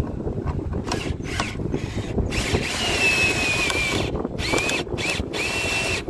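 Power drill driving a steel eye bolt into a pressure-treated board, run in short bursts with one longer run of about two seconds. Its motor whine sags slightly under load as the bolt threads into the wood.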